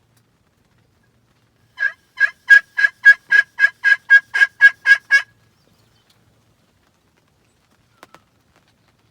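Turkey yelps: a run of about a dozen loud, evenly spaced yelps at roughly three a second, starting about two seconds in and stopping abruptly. A faint click follows near the end.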